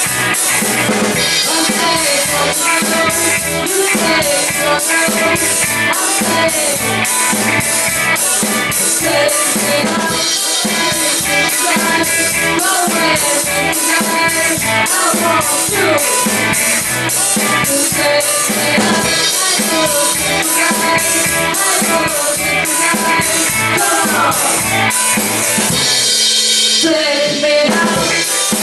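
Rock band playing live: a drum kit keeps a steady beat on cymbals and drums under electric guitar and a bending melodic line. The cymbals drop out for about a second near the end.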